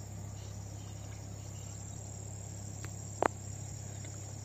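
Steady high-pitched insect chirring over a low steady hum. About three seconds in, one brief sharp slap cuts through.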